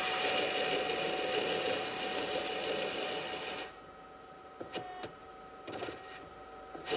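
Valve guide cutter on a guide machine spinning down into a worn exhaust valve guide, cutting its top flush with an aluminum cylinder head. A steady grinding with a faint whine runs until a little over halfway through. Then the cutting stops, leaving the faint whine and a few light clicks.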